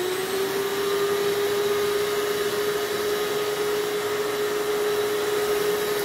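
Shop vacuum, run with its filter and bag taken out, running at full speed with a steady whine as it pulls suction through a vacuum table hold-down.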